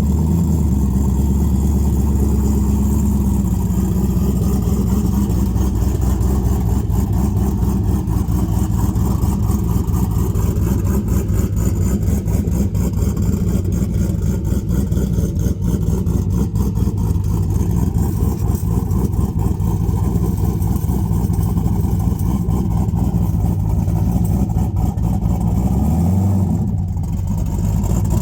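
Pontiac Firebird's turbocharged V8 with a BTR Stage 2 cam, running at a steady idle. The note dips and then rises briefly near the end.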